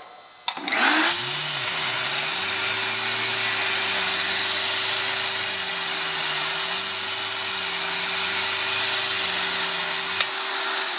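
Thread-cleaning brush tool and its attached vacuum start about half a second in and run steadily, with a strong high hiss and a steady hum, while the rotary brush scours the rusty inside threads of a hammer union nut. The machine cuts off near the end, leaving a fading whir.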